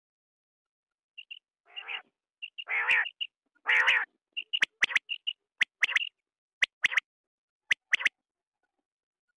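Male quail calling: a few short chirps and three harsh rasping notes, then a run of sharp three-note calls repeated about once a second.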